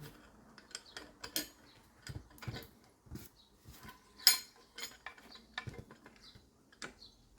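Irregular clicks and knocks of small parts being handled and slid together while a bicycle suspension fork is reassembled. The sharpest click comes about four seconds in.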